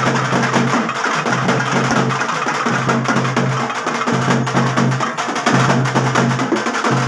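Festival drums playing a fast, dense rhythm of sharp strokes for the dancers. Under it a low steady note comes and goes in stretches of about a second.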